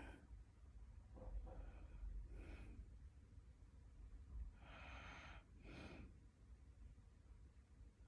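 Faint snoring breaths of a sleeper: two breathing cycles, each a pair of short, hissy breaths about a second apart, with a pause of about two seconds between the cycles. The owner wonders whether this snoring is a sign of sleep apnea.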